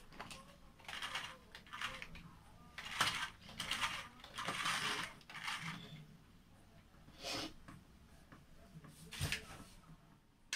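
Handling noise from a toy RC rock crawler and its plastic transmitter being moved and set down on a table: scattered quiet clicks, rattles and scrapes in short bursts, with a dull knock about nine seconds in.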